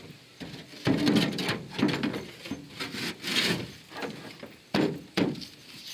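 Plywood panel scraping and knocking against the aluminum hull of a jon boat as it is fitted into place against the transom: a run of irregular scrapes, then two sharper knocks near the end.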